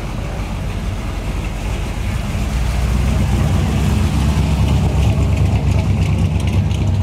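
The engine of a 1960s Chevrolet pickup truck rumbles low as the truck cruises slowly past at close range. It grows louder about halfway through.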